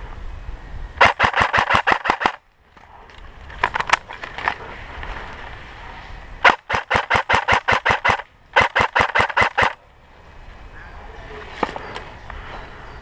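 Airsoft electric gun (AEG) firing rapid full-auto bursts: a long burst about a second in, a short one near four seconds, then two more bursts later on with a brief pause between them.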